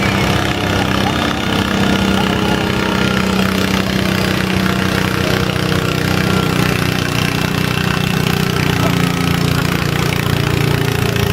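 Lawn mower tractor's engine running steadily and loudly, its pitch sinking slightly in the last few seconds.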